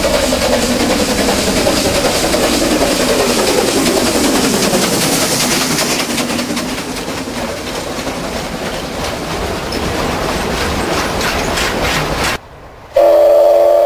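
Narrow-gauge steam locomotive passing close by in a cloud of its own steam, hissing, followed by a rake of loaded clay wagons rolling past, their wheels clicking over the rail joints. Near the end the sound drops off suddenly, then a loud steam whistle blows for about a second.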